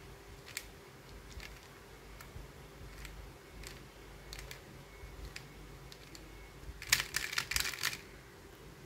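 Square-1 puzzle being turned and sliced by hand, with sharp plastic clicks as its layers snap into place: scattered single clicks, then a quick flurry of louder clicks about seven seconds in.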